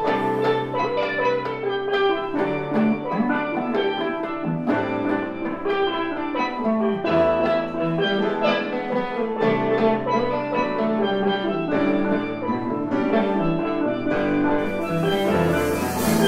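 Live percussion ensemble playing a jazz-fusion tune: steel pan carries the melody in quick struck notes over sustained bass notes and drums, the sound growing brighter near the end.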